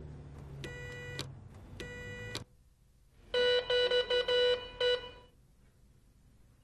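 Building door intercom being buzzed: two short electronic buzzes over low traffic rumble, then a louder ring from the wall-mounted intercom handset indoors, broken into a quick run of about six pulses lasting about two seconds.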